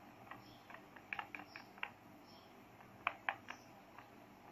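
Faint, irregular little clicks and taps of a paintbrush stirring gouache in a palette well, in two clusters, one about a second in and another about three seconds in.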